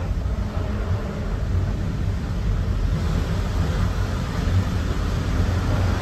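Steady rumble and rolling noise of a moving passenger train coach heard from inside, a little louder in the second half.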